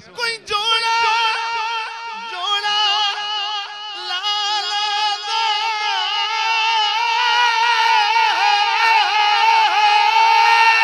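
A male reciter's voice holding one long, high sung note in a naat, wavering with ornaments and growing louder toward the end.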